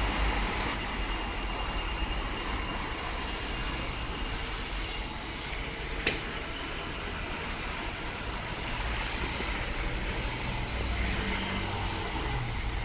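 Street traffic: cars going by with a steady low rumble, and a single sharp click about six seconds in.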